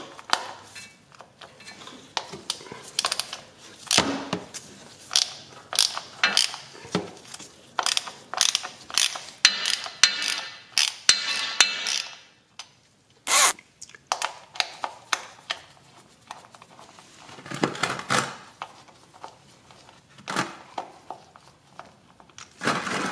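Hand ratchet clicking in short runs as it backs out the transmission drain plug, with a few knocks of the tool against the plug and case. The clicks come thickest through the middle and thin out toward the end.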